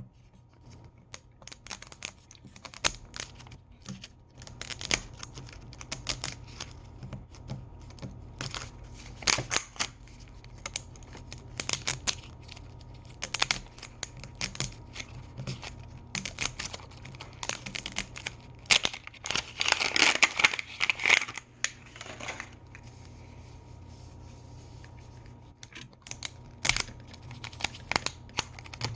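Plastic packaging of a toy capsule being handled and unwrapped: scattered crinkles and small clicks, with a longer stretch of tearing and crinkling about two-thirds of the way through.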